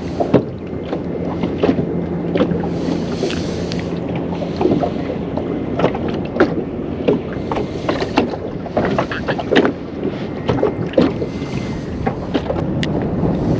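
Wind on the microphone and water against the hull of a small fishing boat, with frequent irregular knocks and clicks from handling on board.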